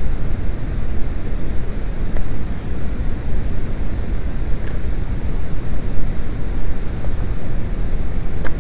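Wind buffeting the microphone: a loud, uneven low rumble, with a couple of faint clicks.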